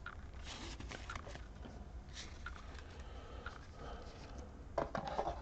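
Faint rustling and light taps of trading cards and booster-pack wrappers being handled, with a short flurry of handling noise near the end.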